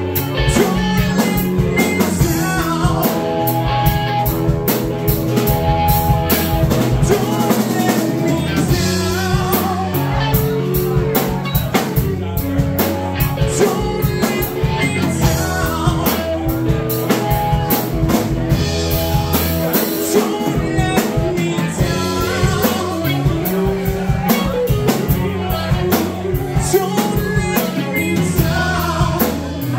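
A live rock trio playing a song: electric guitar, electric bass guitar and drum kit, with steady drum and cymbal hits under the guitar lines.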